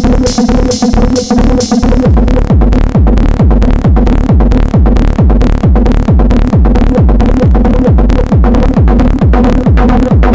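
Hard techno played on drum machines and synthesizer: a fast, even kick drum whose every hit drops in pitch, under a sustained synth tone. About two seconds in, the bright hi-hat layer drops away and the kick carries the beat.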